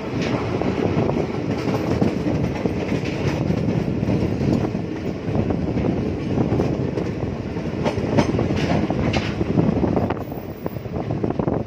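Passenger train coach running along the track, heard from its open doorway: a steady rumble of wheels on rail with clickety-clack over joints, and a few sharp clacks about eight to nine seconds in.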